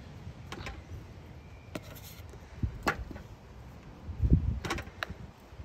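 Fingers working chopped dill and salt in a plastic tub: soft rustling with a few sharp clicks, and a dull bump about four seconds in.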